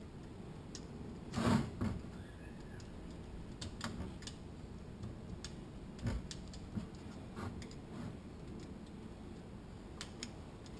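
Irregular light metallic clicks and taps as steel automatic-transmission parts and a pick tool are worked by hand to seat them on a drum and shaft. The loudest click comes about a second and a half in, and a few fainter ones are scattered after it.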